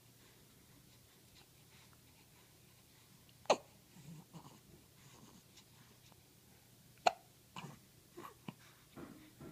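Eleven-day-old baby hiccuping: two sharp hiccups about three and a half seconds apart, the second followed by a few fainter short sounds.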